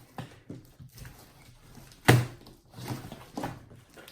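Slime being stretched and worked by hand, with small squishes and one sharp pop about two seconds in.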